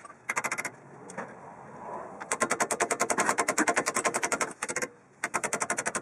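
Pneumatic hammering tool striking metal in rapid bursts, about fifteen blows a second: a short burst near the start, a long one of about two seconds in the middle, then more bursts near the end. It is working on a badly corroded disc brake caliper slide pin.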